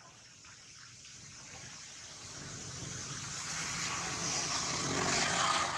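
A vehicle passing along the road: a rushing noise of tyres and engine that swells steadily, is loudest near the end, and then starts to fade.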